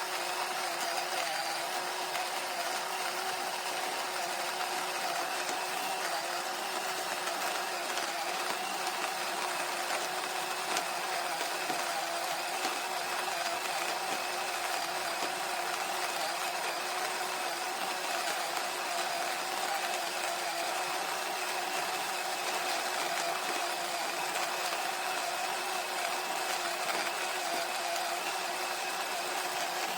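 SHARDOR 2.0 electric burr coffee grinder running steadily, its motor giving a constant whine over a grinding hiss.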